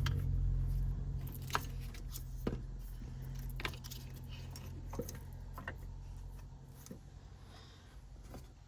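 Light metallic clicks and clinks, about six spread a second or so apart, from bolts being handled and finger-tightened on an AC compressor's manifold, over a steady low hum that fades away.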